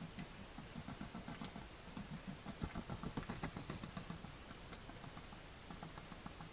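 Hedgehog feeding: a fast, rhythmic run of snuffling and chewing noises, loudest about three seconds in.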